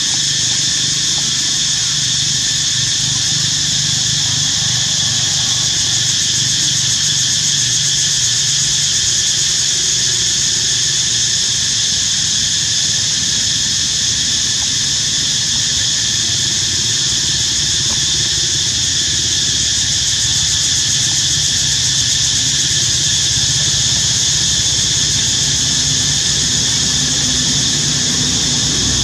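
Loud, unbroken high-pitched droning of a cicada chorus, with a low rumble underneath.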